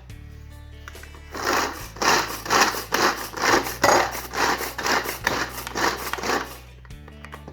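Garlic being ground with a pinch of salt, a steady series of rasping, scraping strokes a little over two a second for about five and a half seconds. The mixture is staying grainy rather than turning smooth.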